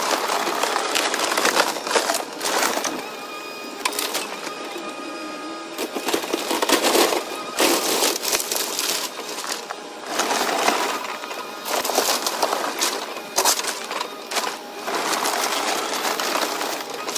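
Wood-framed house being torn down by a CAT hydraulic excavator: timber framing and siding cracking and splintering, and debris crashing down again and again, over the steady hum of the excavator's engine.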